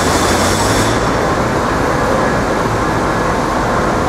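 Steady city street noise of passing traffic, a dense rumble and hiss that stays loud throughout; the high hiss thins out about a second in.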